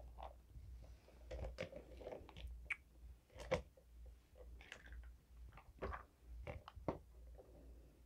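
Clear plastic drink cups being handled, shifted and set down on a wooden cutting board: scattered light taps and knocks at irregular intervals.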